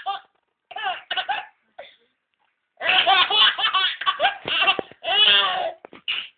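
A young child laughing hard in repeated belly laughs: short bursts at first, a pause of about a second, then a long unbroken run of laughter from about three seconds in.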